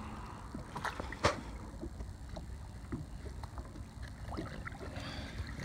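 Landing net splashing in the water beside a boat as a hooked fish is scooped into it, with water lapping and small clicks. A sharp knock comes about a second in. Low wind rumble sits on the microphone throughout.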